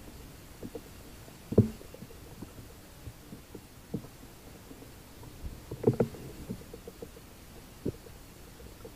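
Scattered dull, low knocks and bumps, the loudest about a second and a half in and again about six seconds in. This is handling noise from a rifle and the camera mounted on its scope as the rifle is moved about.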